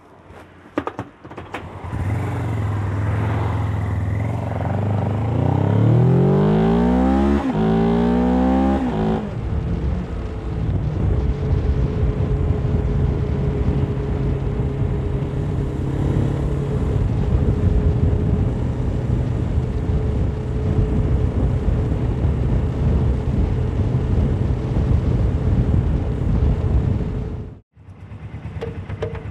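Suzuki GS500F's parallel-twin motorcycle engine running, then rising in pitch twice as the bike accelerates away through the gears. From about ten seconds in it settles into steady riding, with heavy wind rush on the chin-mounted camera's microphone. The sound cuts out briefly near the end.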